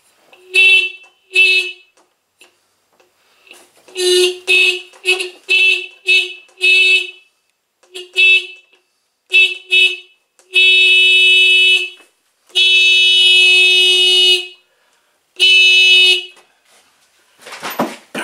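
Small disc-type electric horn on a 49cc scooter sounding in a string of short beeps, then three longer steady blasts. The horn had only been clicking, and this is it working again after its adjusting screw was set.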